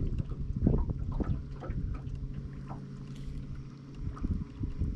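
Electric trolling motor humming steadily, with irregular light knocks over it; the hum fades about four seconds in.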